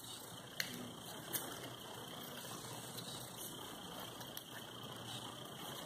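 Faint snips of scissors trimming the edges of a cardboard egg-carton cup, rounding off its petal tips. Two sharper snips stand out, at about half a second and a second and a half, over a steady low hiss.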